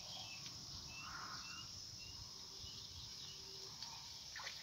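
Quiet riverside ambience: a steady high drone of crickets, with a few short bird chirps about a second in and a faint splash near the end as the hooked fish breaks the surface.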